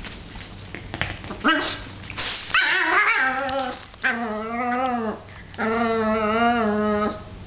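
Papillon dog whining and yowling in excitement: after a few clicks, a run of about four drawn-out, wavering high-pitched cries starting about a second and a half in, the longest lasting about a second and a half.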